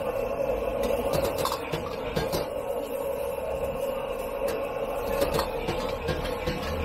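Metal ladle scraping and clanking irregularly against a carbon-steel wok as fried rice is stir-fried and tossed, over a steady roar from the gas wok burner.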